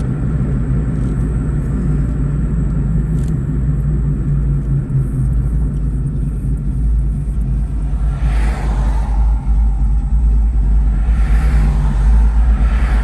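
Car engine running steadily with a heavy low drone, with two brief swells of higher-pitched noise about eight and eleven seconds in.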